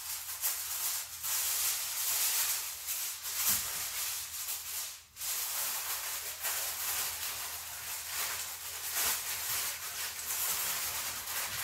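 Aluminum foil crinkling and rustling as pieces are pressed down to cover food, with a brief pause about five seconds in.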